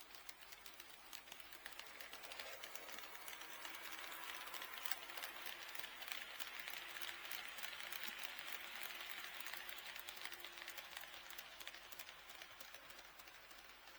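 HO-scale model train passing on KATO Unitrack, its wheels ticking rapidly over the rail joints, with a faint motor hum. It grows louder from about two seconds in and fades near the end.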